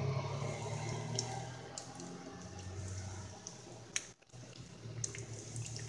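Croquettes sizzling in hot oil in a frying pan: a steady hiss with scattered small pops and crackles, louder at first and settling after a second or two. The sound cuts out briefly about four seconds in.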